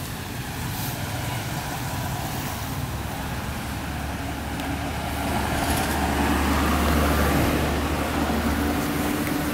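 Steady low engine hum of a motor vehicle over traffic noise, growing louder about halfway through and then easing slightly near the end.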